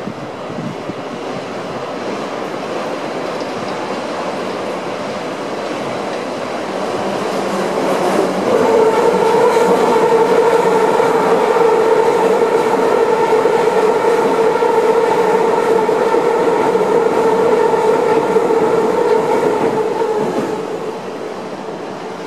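Red Keikyu electric train passing close by, its rumble building, then from about eight seconds in a steady pitched whine with overtones that holds for about twelve seconds as the cars go by, and fades near the end.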